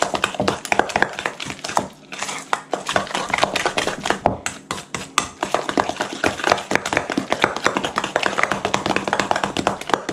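A utensil clicking and scraping against a mixing bowl in a quick, continuous run of knocks as a thick crab cake mixture of mayonnaise, eggs, butter and breadcrumbs is stirred together.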